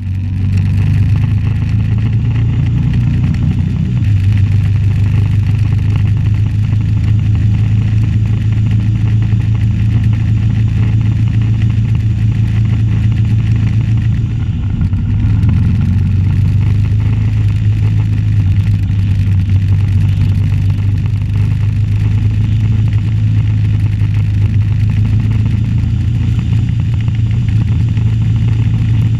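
Suzuki V-Strom 650's V-twin engine running under way, heard from the bike with rushing wind and road noise; the engine note shifts slightly about four seconds in and again around fifteen seconds.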